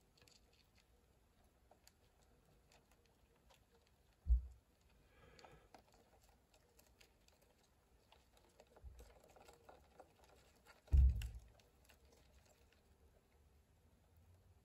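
Faint, irregular clicks and crackles of a giant rainforest mantis chewing a live cockroach. Two dull low thumps come about four seconds in and about eleven seconds in.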